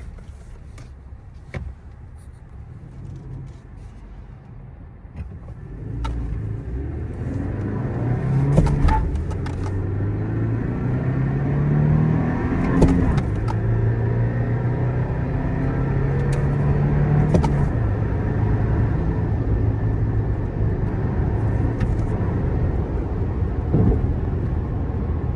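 Toyota Tacoma's 2.4-litre turbo four-cylinder engine, heard from inside the cab. It runs low and quiet at first, then pulls harder through the gears of the manual gearbox, rising in pitch and dropping at each shift before settling to a steady cruise. Its note is rough and diesel-like.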